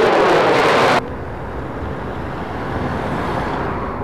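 Loud fighter jet on takeoff, its noise sliding down in pitch as it goes by. About a second in, the sound cuts off abruptly to a quieter, steady jet rumble that swells slightly near the end.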